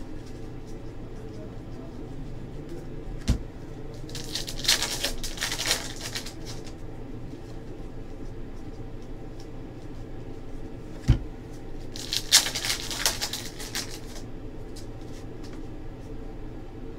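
Trading cards and packs being handled: two bursts of rustling about two seconds long and a couple of light knocks on the table, over a steady low hum.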